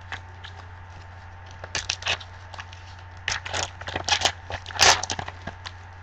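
Foil trading-card pack wrapper crinkling and crackling in gloved hands as the pack is opened and the cards slid out, in irregular bursts that are loudest about five seconds in.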